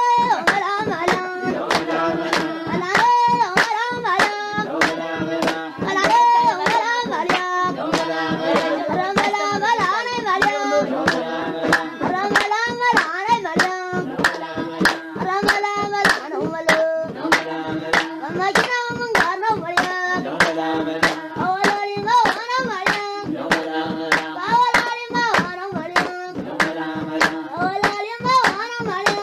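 A group of voices singing a repeating tune to quick, steady hand clapping, the claps sharp and evenly spaced.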